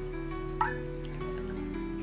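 Soft background music with long held notes; a little over half a second in, a single short, sharp animal call rings out over it.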